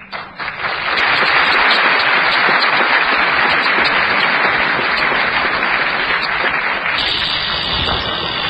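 Audience applauding: dense, sustained clapping that builds within the first second and stays loud throughout.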